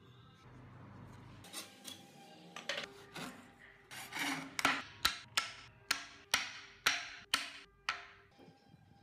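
Hand frame saw cutting through a wooden plank in quick strokes, about two to three a second, the strokes growing louder from about four seconds in. Faint background music underneath.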